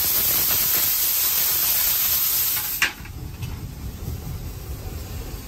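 Loud, steady hiss of the fire in the firebox of Nickel Plate Road 765, a 2-8-4 Berkshire steam locomotive, through its open fire door. About three seconds in, the fire door clanks shut and the sound drops to the lower rumble of the running locomotive.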